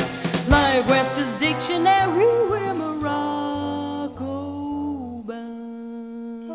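Jazz band playing, with a stepping bass line under sliding, bending melody lines. About five seconds in the bass stops and the band settles on a long held chord.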